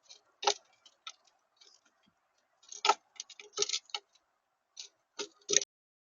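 Birds pecking and tapping at a bird feeder: irregular sharp clicks and taps, the loudest about half a second in, around three seconds, and a pair near the end.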